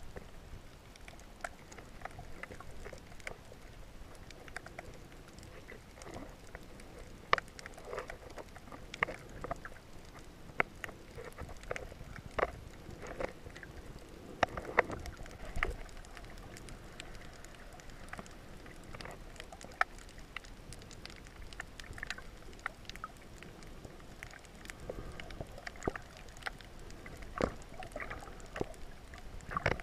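Muffled underwater ambience heard through a submerged camera: a low, steady water rumble with irregular clicks and pops scattered throughout.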